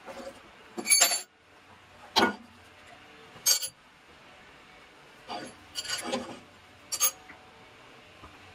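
Steel parts knocking and clinking together as a lathe's wedge-type quick-change tool post is taken off and a wrench is handled and set down on the cross slide: about six separate knocks, the loudest about a second in.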